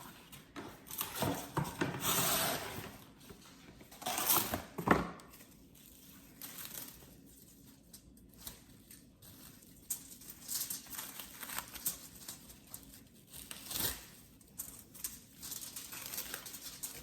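Kitchen foil crinkling and rustling as it is rolled and pressed around a log of soft cake mixture, in irregular handling bursts, loudest about two and four seconds in, then softer rustles.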